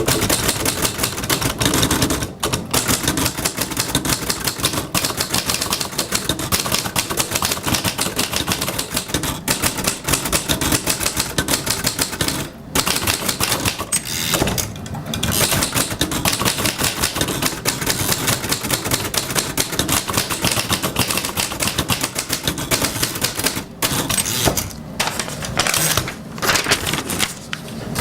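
Typewriters clattering in fast, dense typing, key strikes running almost continuously with a few brief pauses.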